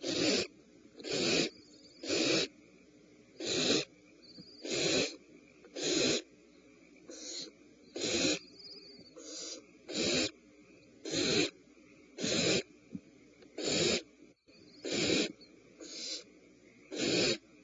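Owl nestlings giving harsh hissing begging calls, each about half a second long and repeated roughly once a second, some louder and some fainter.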